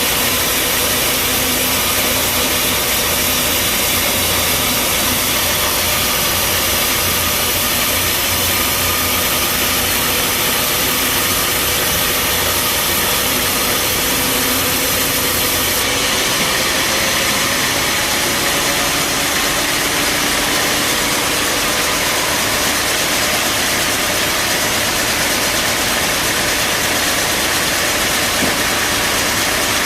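Band sawmill running steadily, a loud continuous machine noise of motor and blade. The high hiss changes about halfway through.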